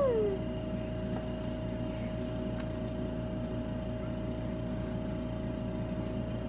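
Steady hum of a nebulizer's air compressor, with a constant whine over a low drone. A baby's squeal falls away in the first moment.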